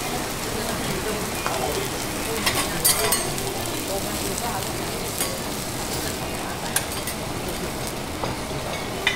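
Beef sizzling steadily on a teppanyaki iron griddle. A few sharp metal clicks of spatulas striking the plate sound over it, several together about three seconds in.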